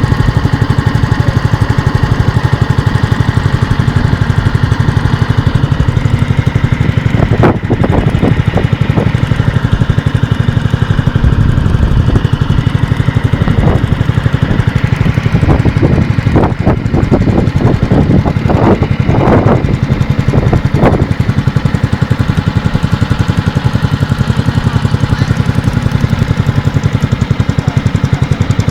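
A small engine running steadily, with a fast, even pulse. A run of short knocks and rattles comes through over its sound in the middle stretch.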